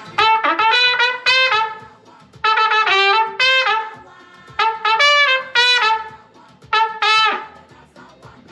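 Trumpet playing a horn-section line in three short phrases of quick, detached notes, with brief pauses between the phrases.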